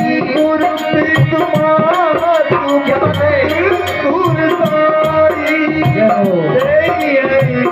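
Music of a Hindi devotional bhajan with no sung words: a gliding melodic line over tabla, with a shaker-like rattle ticking evenly above it.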